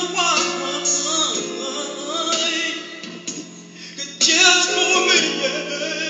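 Man singing a song with long held notes over a steady musical backing, easing off briefly in the middle and coming back louder about four seconds in.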